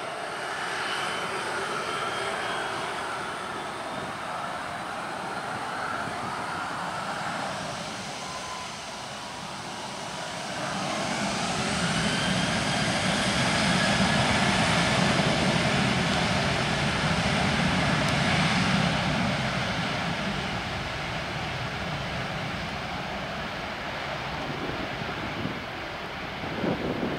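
Boeing 737-800's CFM56-7B turbofan engines: a steady run with a faint whine, then spooling up to takeoff thrust about ten seconds in, with a rising whine and a swelling low rumble. The sound is loudest for several seconds, then fades as the airliner rolls away down the runway.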